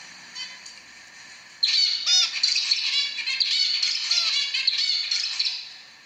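Male zebra finch singing: after a couple of faint calls, a rapid run of short, high notes starts about one and a half seconds in and lasts about four seconds.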